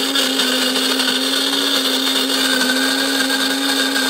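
Electric burr coffee grinder grinding coffee beans: a loud, steady motor whine that cuts off abruptly at the very end as the grind finishes.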